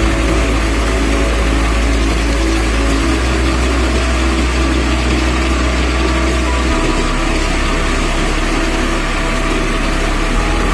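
Engine-driven threshing machine running steadily under load as it threshes mustard stalks, with a low hum under a dense whirring rush.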